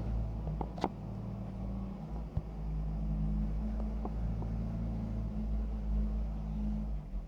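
JCB 3DX backhoe loader's diesel engine running steadily, with a few sharp metallic clicks and knocks from the working machine, the strongest just under a second in.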